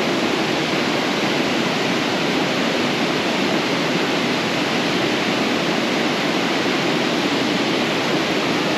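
A fast-flowing mountain trout river rushing over rocks, a steady, unbroken wash of water noise.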